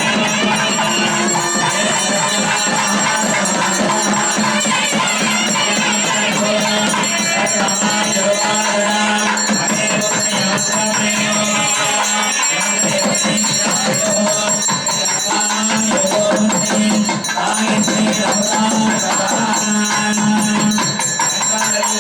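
Traditional temple music: a steady reed-like drone under a wavering melody, with continuous jingling percussion keeping the beat.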